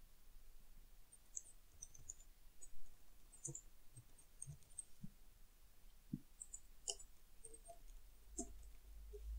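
Faint computer keyboard typing: a scatter of soft, irregular key clicks as code is typed.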